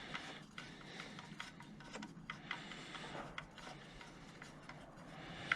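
Faint, scattered clicks and light taps of hand tools and plastic parts being handled while working on the engine, with a sharper click near the end.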